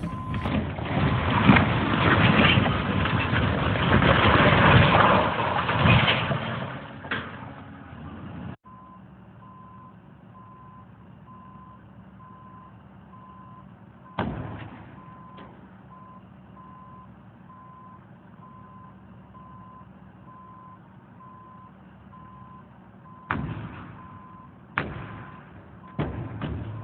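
Demolition of concrete stave farm silos: a loud, rough rumbling for about eight seconds, then a machine's engine running with its backup alarm beeping steadily, broken by several sharp bangs and knocks.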